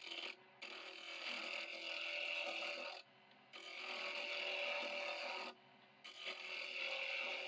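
Hand-held lathe chisel cutting a spinning wooden ring blank: a brief touch, then three scraping passes of about two to three seconds each. Between passes only the lathe's motor hum is left.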